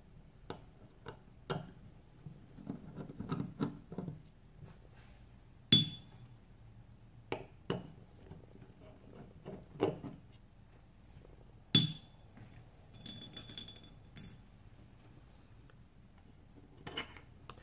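Small screwdriver backing out the screws of the Comset CM685 router's metal SIM card cover: scattered light clicks and ticks of the tool in the screw heads, with a few sharp ringing metallic clinks about 6 and 12 seconds in and again near 14 seconds.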